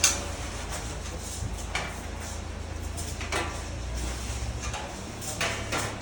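Metal parts of a microwave stand being handled during assembly: a sharp click at the start, then a few short knocks and scrapes, over a low steady hum.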